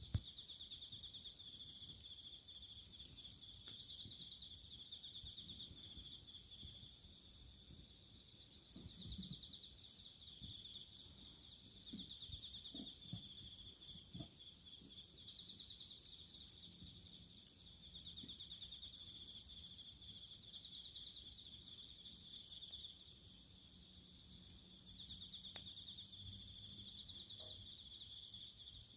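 Faint, steady high trilling of insects, a continuous chirring that swells into rapid pulsing stretches every few seconds, with a few faint scattered clicks.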